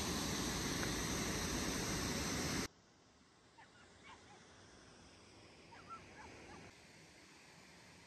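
Steady rushing of a waterfall that cuts off suddenly about two and a half seconds in, leaving a faint hiss with a few soft bird chirps.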